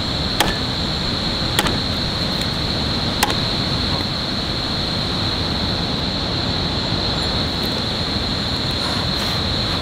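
Steady rushing noise with a constant high-pitched whine above it, broken by three sharp clicks in the first few seconds.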